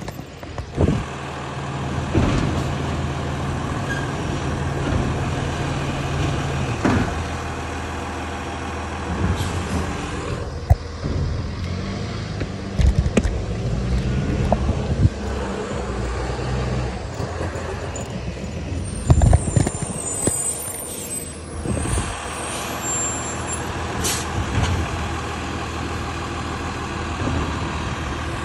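Diesel engine of a side-loading garbage truck running, its speed stepping up and down every few seconds, with a few sharp knocks and clanks and a short hiss.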